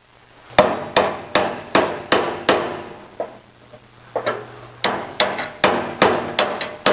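Ball-peen hammer striking a flat steel chisel driven into the seam of a car door's panels, metal ringing on each blow, to split the panels apart where rust hides the spot welds. The strikes come about two and a half a second in two runs, with a pause of about two seconds and a softer tap or two between them.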